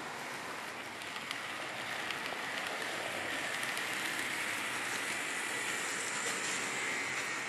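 Model train running along the layout's track: a steady whirring hiss from its motor and wheels that grows louder about two seconds in as it passes close by, with a few faint clicks.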